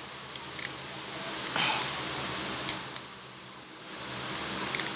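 Handling of a small plastic toy stock car: a few separate sharp plastic clicks and a short rustle about a second and a half in, as the broken-apart body and chassis are pressed back together.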